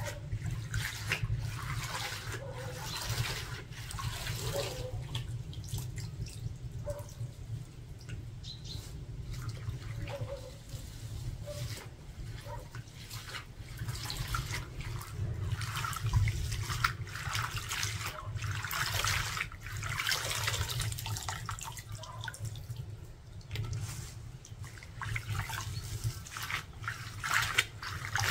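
Water splashing and dripping in irregular bursts, with a steady low hum underneath.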